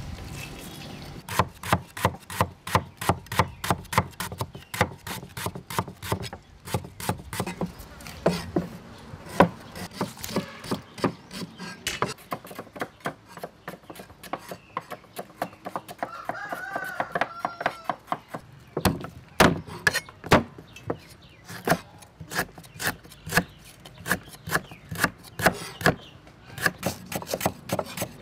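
Cleavers chopping on round wooden chopping boards as lemongrass is sliced, a quick steady run of sharp knocks about three a second.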